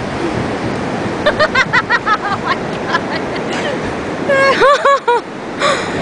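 Ocean surf breaking, a steady rushing, with short bursts of high-pitched voices about a second in and again after four seconds.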